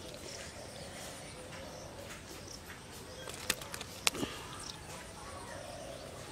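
Quiet outdoor background with two short, sharp clicks about three and a half and four seconds in.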